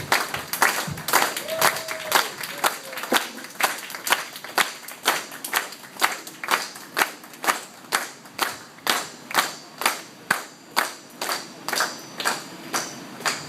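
Applause from an audience: crisp, steady hand claps, denser at first, then settling into about two claps a second, stopping near the end.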